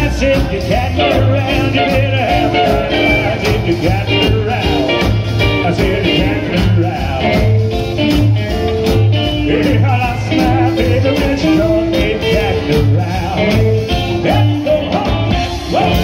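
Live rockabilly band playing with a steady beat: steel guitar, electric guitars, upright bass and drums.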